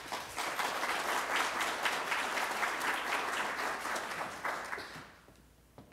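Audience applauding; the applause dies away about five seconds in.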